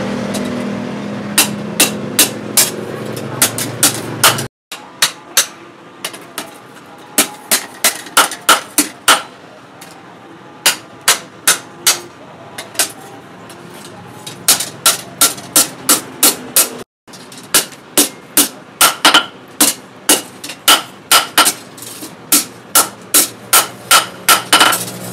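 Hand hammer forging a hot steel blade cut from a brake disc on a small post anvil: a long series of sharp, ringing metal-on-metal blows, coming in quick runs of about two to three a second with short pauses between.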